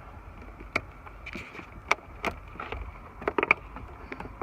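Scattered sharp clicks and knocks from hands and tools working on vehicle wiring and breakers as they are pulled out: one about a second in, two near the middle, and a quick cluster of three or four near the end.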